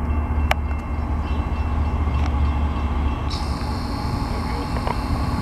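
Norfolk Southern diesel freight locomotive rumbling steadily as a double-stack intermodal train approaches, with one sharp click about half a second in.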